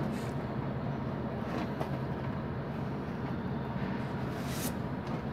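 Steady low background rumble, with faint handling sounds and one short scrape about four and a half seconds in as a screw is pushed by hand through the side of a styrofoam box.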